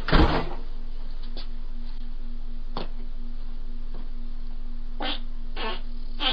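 A short, bass-heavy fart of about half a second, picked up by a Ring video doorbell's microphone. A steady faint electrical hum follows, with a few soft clicks.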